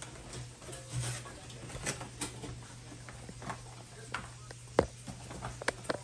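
Cardboard boxes of K-cup pods being handled and opened: light irregular taps, clicks and rustles, with one sharper tap late on, over a low steady hum.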